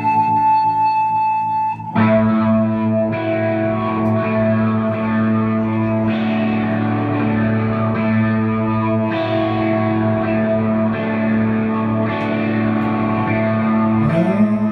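Slow live rock instrumental on electric and acoustic guitar, holding sustained chords that change every second or two. There is a brief drop just before the two-second mark and a rising slide near the end.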